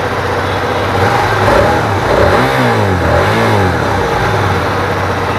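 Hyosung GT250R's 250 cc V-twin idling through its stock exhaust, then blipped twice about two seconds in, the revs rising and falling each time.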